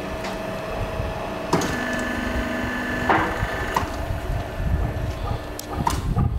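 Polyethylene pipe butt fusion welding machine running with a steady hum. About a second and a half in, a higher pitched whine starts with a click and holds for about a second and a half, then stops with a sharp clack. A few scattered knocks follow near the end.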